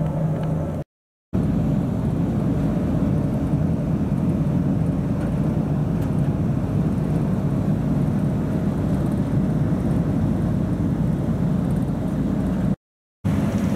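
River ferry's engines running at a steady drone while under way, with a rush of water and wind over it. The sound drops out to silence briefly twice, about a second in and again near the end.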